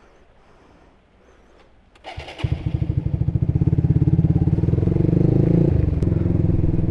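Honda Supra GTR150's single-cylinder engine, fitted with an aftermarket Tridente exhaust, starting about two seconds in and then running with an even, pulsing beat, the revs rising a little before easing back.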